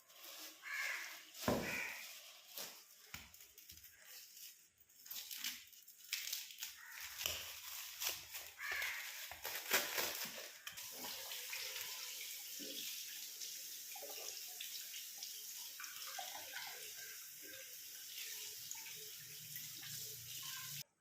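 Scattered light knocks and clicks, then water running steadily for the second half, cutting off abruptly at the end.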